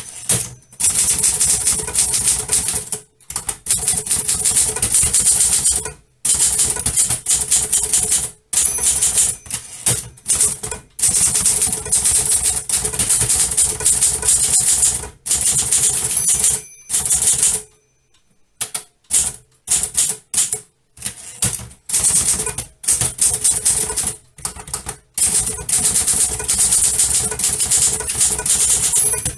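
Manual typewriter being typed on in fast runs of keystrokes, the type bars clacking in bursts with short pauses between them. A brief ring of the margin bell sounds now and then.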